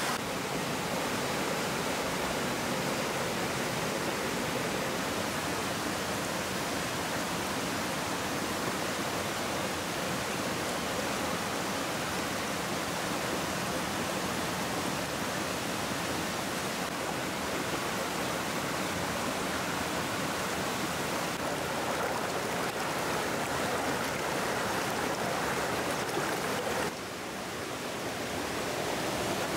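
A rocky mountain stream rushing over rapids, a steady full rush of water. Near the end it briefly drops lower, then builds again.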